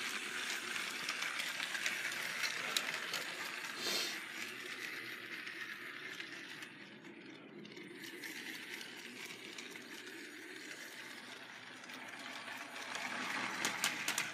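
Trackmaster 2.0 Gordon, a battery-powered toy train engine with its tender, running on plastic track: a steady whir of the motor and gears with light wheel clatter. It grows fainter in the middle and louder again near the end.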